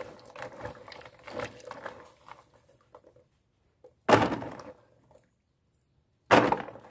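A hand swishes through a basin of small liputi berries in water, with light sloshing and many small clicks. Two handfuls of wet berries are then dropped into an empty plastic tub, each landing as a sharp clatter, about two seconds apart.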